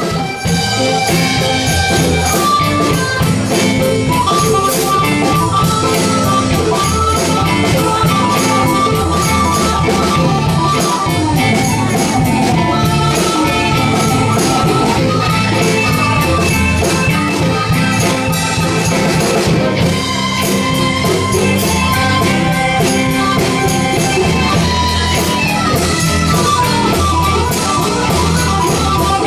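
Live rock band playing an instrumental passage: drum kit, electric guitars and keyboard, loud and continuous.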